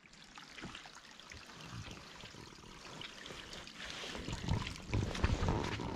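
Steady rush of flowing river water, with scattered footsteps on the trail that grow louder in the last second or so.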